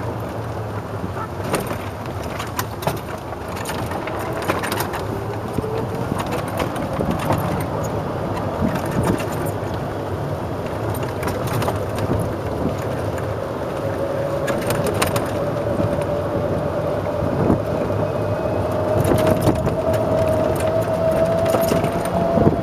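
1993 Club Car DS golf cart driving along a paved path: a steady running noise with scattered knocks and rattles, and a whine that slowly rises in pitch as the cart gathers speed.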